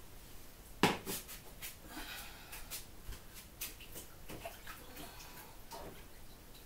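Hands being washed at a kitchen sink: splashing water with irregular clicks and knocks, the sharpest about a second in.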